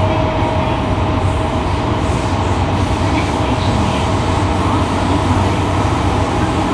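Fukuoka City Subway 2000 series train (Hitachi GTO-VVVF inverter car) running through the tunnel between stations, heard inside the car: steady rumble of wheels and motors with a faint steady tone that fades about a second in.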